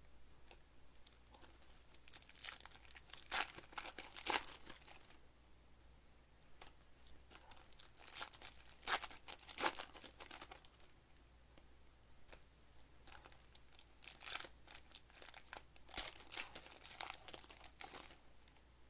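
Foil wrappers of Panini Select basketball card packs crinkling and tearing as they are opened by hand, in three spells of crackling with quieter gaps between.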